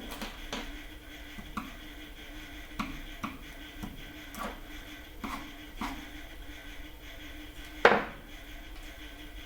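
Light clicks and taps of small tools and parts being handled on a workbench during soldering work, with one louder knock about eight seconds in, over a steady faint hum.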